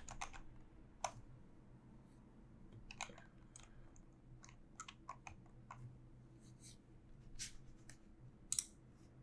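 Faint, scattered computer keyboard key clicks, a few keystrokes at a time with pauses between, the loudest near the end.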